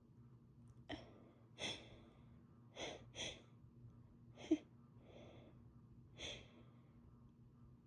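Sneeze buildup from a person with a cold: a string of about seven short, sharp catching inhalations at irregular spacing, the loudest about four and a half seconds in. No sneeze comes.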